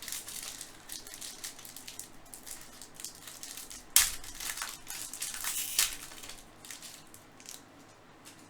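Trading card pack wrapper being crinkled and torn open, with a sharp snap about four seconds in; the crinkling thins out near the end.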